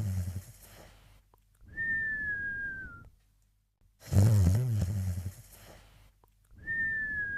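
Cartoon snoring: a loud, low snore followed by a long whistle that falls slightly in pitch, the snore-then-whistle cycle repeating about every four seconds.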